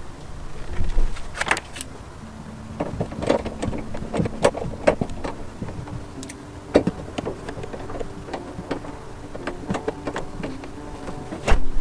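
Irregular plastic clicks and knocks as door panel clips are slid in and the interior door panel of a Chevy S10 is handled and pressed onto the door.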